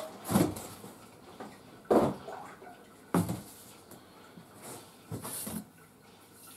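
Handling noise while unpacking a large cardboard box: four or five separate dull thumps and knocks, with light rustling and footsteps on a wooden floor between them.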